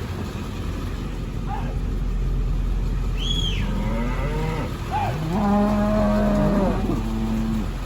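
Cow mooing: one long low call that rises about three and a half seconds in and holds steady for roughly three seconds, over a steady background of wind noise.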